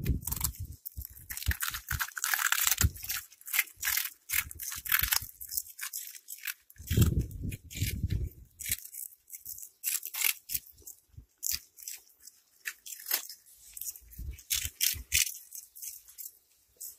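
Cats crunching and chewing crunchy red puffed snack balls, an irregular rapid run of crisp crunches, with a brief low rumble about seven seconds in.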